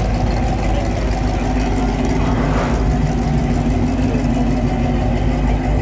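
Pontiac Firebird convertible's engine running steadily at low speed as it cruises past, with a slight swell about halfway through.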